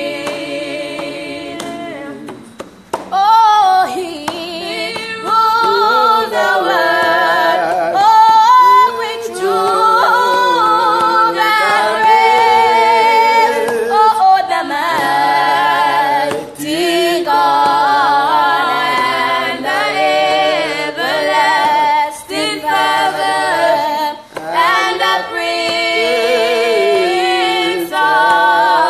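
A small group singing a worship song unaccompanied, a woman's voice to the fore, in slow, long held notes. There is a short break in the singing about three seconds in.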